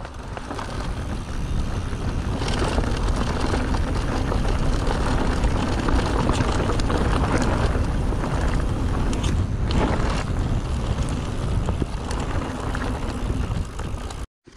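Wind rushing over an action camera's microphone while a mountain bike is ridden, with tyre rumble and a rattle of clicks from the bike.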